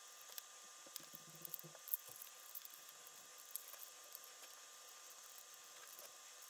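Faint, scattered clicks and taps of hard plastic toy shell parts and wires being handled and fitted together, over a steady hiss; the sharpest click comes about two seconds in.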